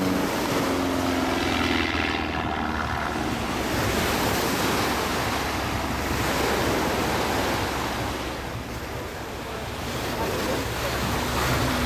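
Surf washing onto the beach, with wind on the microphone. A passing aerobatic plane's engine drone dies away in the first second or two, and a low engine drone comes back near the end.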